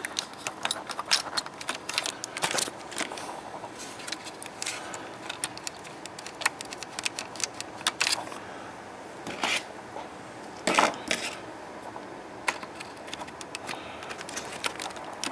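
Irregular small clicks and a few short scrapes of hands and a small flat screwdriver working the plastic clips and tabs that hold an LCD monitor's power circuit board.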